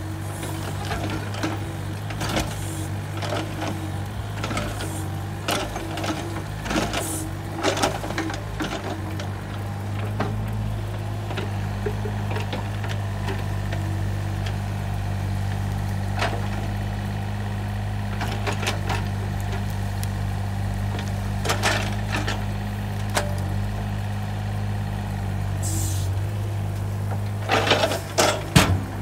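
Takeuchi TB135 mini excavator's diesel engine running steadily under hydraulic load, with scattered knocks from the working bucket. Near the end comes a loud clatter of knocks as a bucketful of brush and dirt is dropped into a steel dump trailer.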